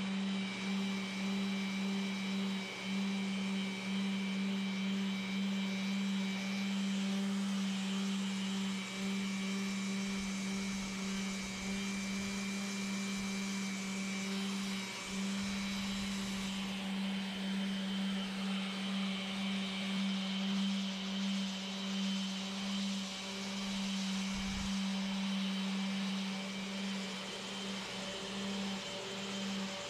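Electric power tool motor running steadily: a constant hum with a fainter, higher whine above it.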